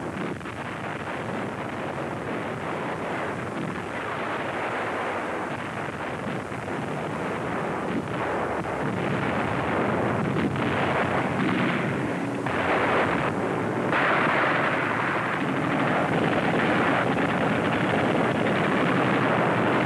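Battle sound of gunfire and explosions, a dense, continuous clatter and rumble that grows louder about halfway through.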